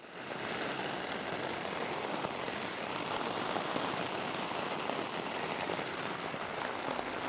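Steady rain, a dense even patter that fades in over the first half-second and holds level.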